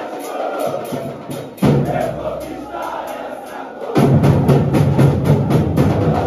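A crowd of football supporters chanting together to a steady rhythmic beat. Deep drums come in loud about four seconds in.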